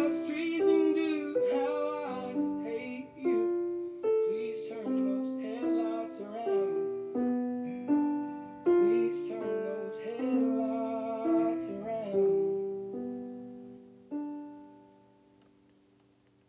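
Piano playing a slow melody of single notes and chords, each ringing and fading, with a recorded song and its singing voice playing faintly underneath. The playing thins out about twelve seconds in, and a last note near the end rings away to near silence.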